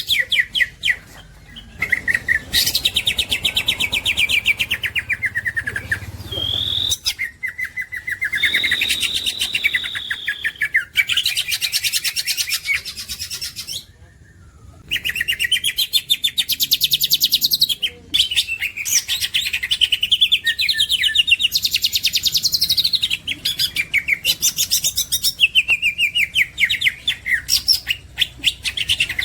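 Cucak ijo (green leafbird) singing: long phrases of rapid trilled notes with falling sweeps and a couple of drawn-out whistles, broken by a short pause about halfway through.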